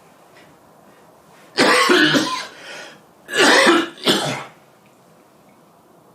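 A man coughing and clearing his throat in three harsh bursts: the first about a second and a half in, then two close together near the middle.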